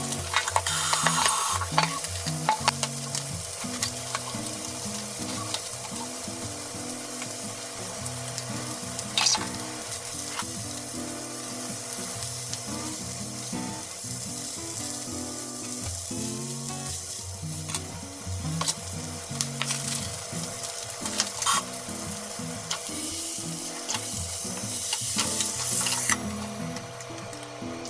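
Meat rolls sizzling steadily in oil in a nonstick frying pan, with occasional light clicks as chopsticks turn them against the pan. Near the end the sizzle swells as sake is splashed in, then drops suddenly as a lid goes on for steam-frying.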